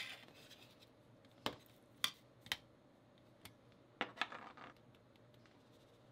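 A metal spoon clinking and scraping against a stainless steel tray in a handful of short, sharp taps, spaced irregularly, while potato starch is spooned over pieces of fish.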